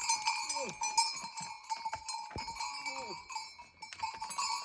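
Livestock bells clanking and ringing steadily, with two short falling bleats from goats or sheep.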